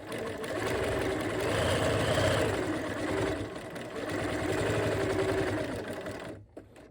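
Bernina 1130 sewing machine running a decorative stitch, stitching steadily with a slight rise and fall in its pitch, then stopping near the end.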